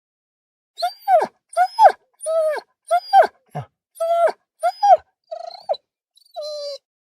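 A dog whimpering and yelping: about a dozen short, high cries in quick succession, each rising then falling in pitch, ending in a longer, steadier whine near the end.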